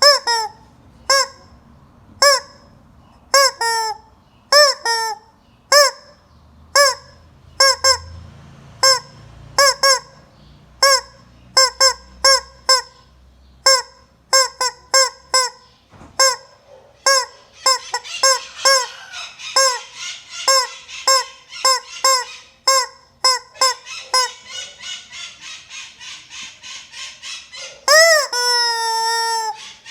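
Hen calling over and over in short, loud calls that each drop in pitch, about two a second at first. Partway through the calls speed up into a quicker run with a raspy edge, and near the end comes one long drawn-out call.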